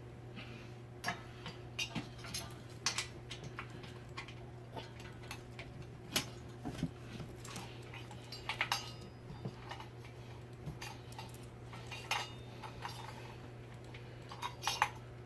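Irregular light clicks and metallic clinks of ceiling-fan parts and hardware being handled and fitted during assembly, over a steady low hum.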